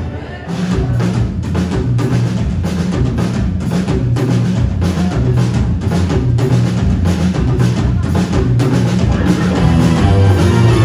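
Live rock band playing an instrumental passage: a steady drum-kit beat over bass guitar, electric guitar and keyboards. The band drops out for a moment at the very start and comes back in about half a second later.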